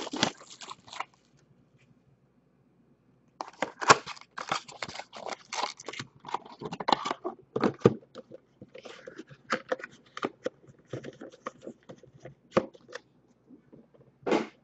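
Foil-wrapped trading card packs crinkling and rustling as hands pull them from a box and stack them on a table, after a short lull about two seconds in. A sharp, loud crinkle comes near the end.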